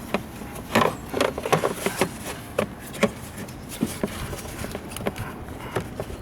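Irregular clicks and knocks of hard parts being handled and fitted in a car's engine bay during a battery change, several a second.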